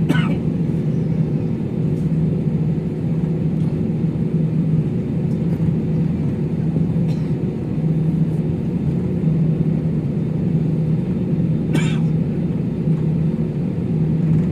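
Airliner cabin noise on the ground before take-off: the jet engines and cabin air system make a steady drone with a low hum.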